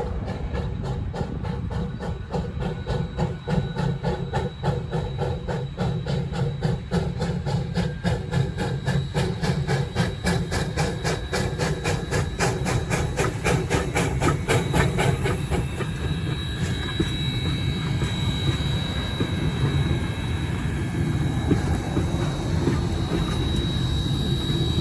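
A passing train, its wheels clicking rapidly and evenly over the rail joints over a steady low rumble. In the last third the clicks fade and thin, steady high tones come in.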